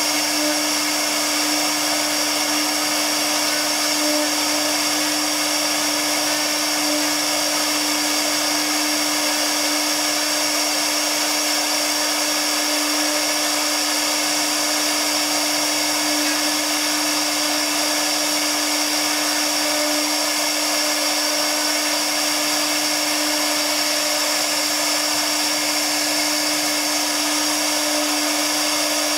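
CNC router spindle running steadily as its bit carves relief into MDF board: a constant whine over continuous cutting noise.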